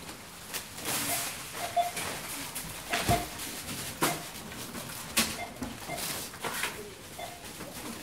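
Supermarket checkout ambience: short scanner beeps at irregular intervals, with knocks and rustling of goods being handled, and a heavier thump about three seconds in.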